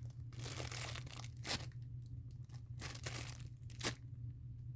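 Plastic packaging crinkling and rustling as a foam squishy toy is handled, with two sharper crackles, one about a third of the way in and one near the end, over a low steady hum.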